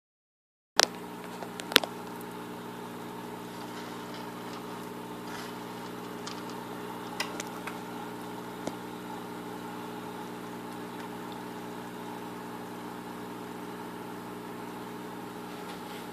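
Steady electric hum of an aquarium pump running. It starts with a sharp click after a brief silence, a second click follows about a second later, and a few faint ticks come later.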